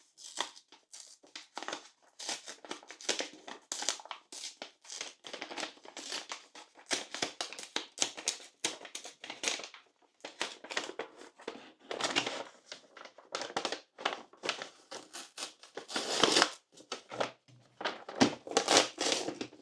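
Packaging of a Lego set being handled and pulled open: irregular crinkling and rustling, with louder spells about twelve, sixteen and nineteen seconds in.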